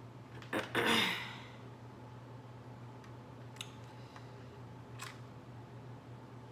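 Handling of a whole blue crab's hard shell while eating: a sharp click about half a second in followed by a brief crackling rustle, then two light clicks later on, over a steady low hum.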